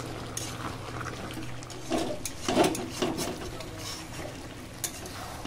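A flat metal spatula stirring chicken pieces through a thick, wet masala gravy in an aluminium kadai, with scattered scrapes and clinks against the pan that are loudest about two to three seconds in, over a low steady hum.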